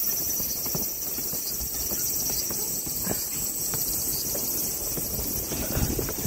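A steady high-pitched insect chorus, with gusty wind rumbling on the microphone underneath.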